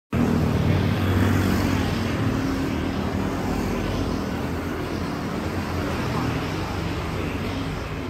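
Road traffic on a city street: cars and motor scooters passing in a steady rumble that is loudest in the first couple of seconds and then eases slightly.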